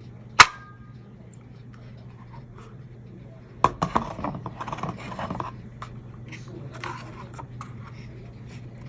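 Handling sounds while a vacuum cleaner is unpacked: one sharp click with a brief ring about half a second in, then a couple of seconds of clattering and rustling a few seconds later. The machine itself is not running.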